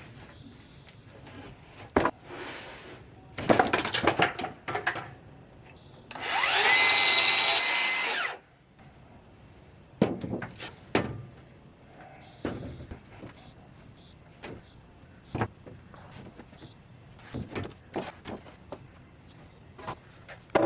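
Thin cedar boards knocking and clattering as they are handled and stacked, with a brief cut by an electric saw about six seconds in: a whine that climbs as the saw spins up, then about two seconds of cutting that stops abruptly. More sharp board knocks follow.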